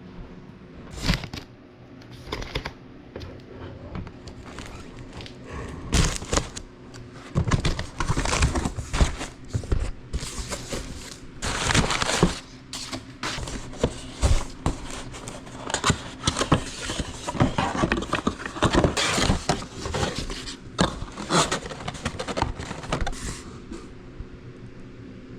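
Irregular crinkling, scraping and knocking of things being handled, over a steady low hum.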